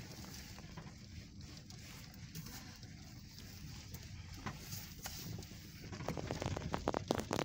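A scattered patter of small taps from swarming bees striking the car's windshield and body, heard from inside the cabin over a low steady rumble. The taps come thicker and louder near the end.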